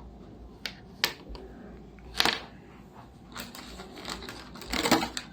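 Packaging and small parts being handled: a string of sharp clicks and short rustles, with a louder crinkling burst near the end.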